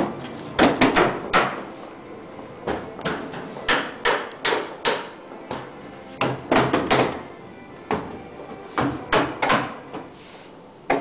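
Sharp wooden knocks in irregular groups of two to four, with pauses between, ringing briefly in the bare wood-framed shell of a building under construction.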